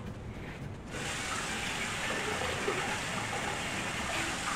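Kitchen sink tap turned on about a second in, water running steadily into the sink.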